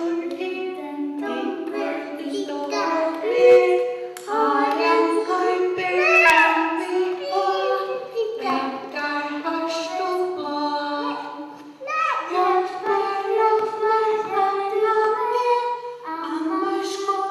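A woman singing into a stage microphone in a high voice, holding short notes that step up and down.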